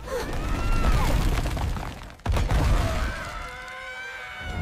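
Cartoon sound effect of a block wall crumbling and crashing down: a sudden crash with a deep rumble, then a second heavy crash about two seconds in. Over the last part, several small characters scream together in high voices.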